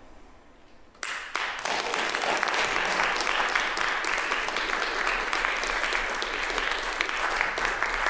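Audience applause breaks out suddenly about a second in and goes on steadily.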